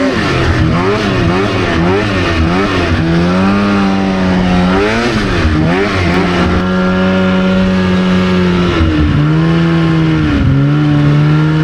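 Polaris RMK 700 snowmobile's two-stroke engine under throttle in deep snow: revs swing up and down quickly for the first few seconds, then hold steady at high revs in long pulls, dropping sharply twice in the later part. The rider is running it hard to check the clutching, reading about 7,900 rpm.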